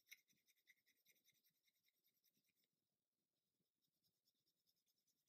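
Near silence, with faint rapid ticking and scratching in the first couple of seconds: small plastic kit parts being handled and fitted.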